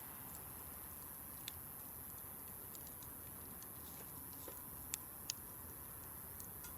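Wood campfire crackling: sparse sharp pops and snaps from the burning wood, with three louder pops about a second and a half, five seconds and five and a half seconds in, over a faint steady hiss.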